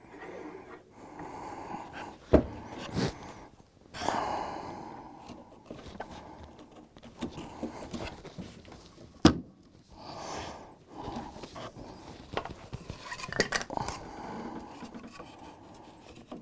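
Wooden helix segments and a plastic glue bottle handled and set down on a plywood baseboard: two sharp knocks, about two seconds in and about nine seconds in, with quieter shuffling and scraping between.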